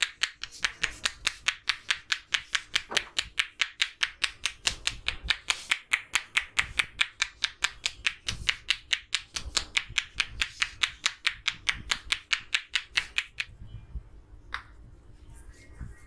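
Fast, even head tapping by a barber's hands during a head massage: loud, sharp slaps or claps on the scalp at about five a second, which stop abruptly near the end. One last single tap follows.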